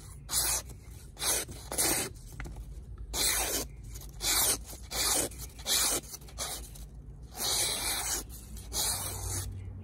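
A Bestech Syntax folding knife's 14C28N steel blade slicing through a sheet of paper in a run of short strokes, each a brief rasping swish, roughly one every half second to second. It is a paper sharpness test of the factory edge, which cuts cleanly.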